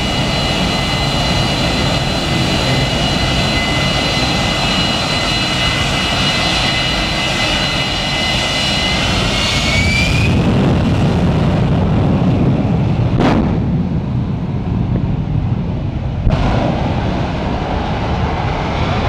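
Jet engine of a jet-powered semi truck running with a steady high whine over a heavy rumble; the whine rises and drops away about ten seconds in. A deep jet rumble follows, with one sharp bang a few seconds later.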